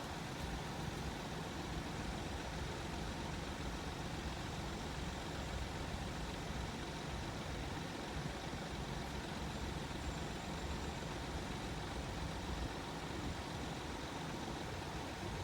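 Steady low engine rumble of an idling vehicle, even throughout with no sudden sounds.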